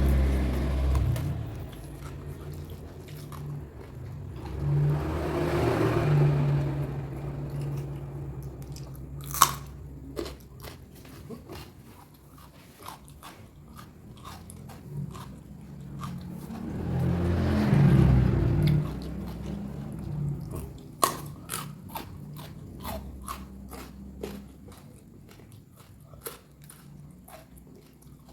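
Close-miked eating of raw food: crisp crunching bites and chewing, with many sharp crunch clicks throughout and two louder stretches about 5 and 18 seconds in.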